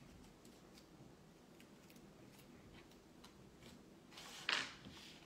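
Quiet handling of trading cards: a few light, irregular clicks and one brief rustle about four and a half seconds in.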